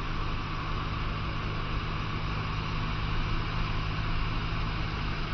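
Cessna 150's four-cylinder Continental O-200 engine and propeller droning steadily in cruise, heard inside the cockpit with an even hiss over the low hum.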